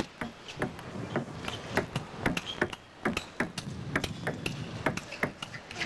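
A fast table tennis rally: the celluloid ball clicks sharply off the players' bats and the table in quick alternation, several hits a second.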